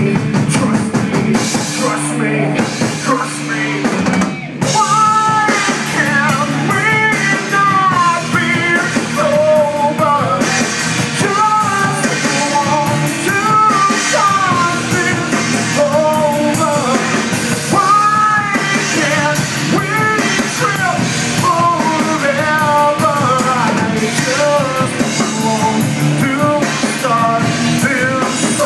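Live rock band playing: electric guitars, bass guitar and drum kit, with a singer's vocals coming in about five seconds in after a brief break in the music.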